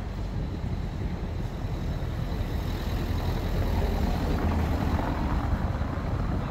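Street noise of a motor vehicle passing on a cobblestone street, its sound swelling to a peak around the middle and easing off toward the end.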